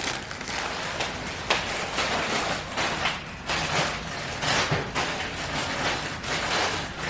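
Crinkly snack-food packaging being handled: irregular crackling rustles.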